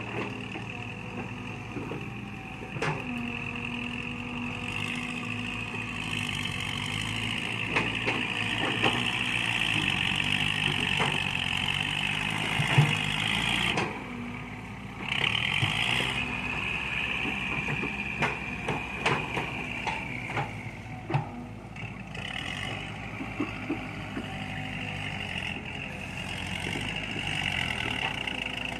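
Excavator's diesel engine running under working load, with a high whine that breaks off briefly about halfway and scattered knocks and clanks.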